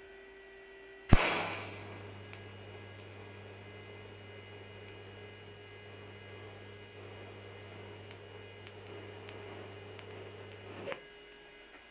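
TIG welding arc on steel square tubing. The arc strikes with a sharp crack about a second in, then gives a steady electric buzz for about ten seconds and cuts off suddenly near the end.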